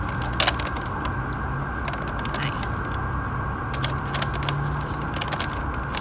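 Brown paper bag crinkling and rustling in quick sharp crackles as it is handled and unfolded to let a stunned bird out.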